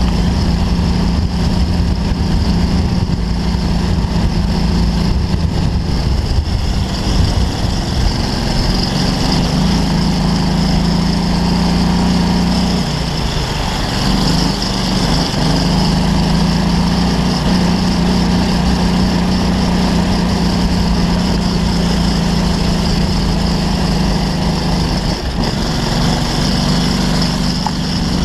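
Off-road buggy engine running at steady revs, with a brief wavering in pitch about halfway through.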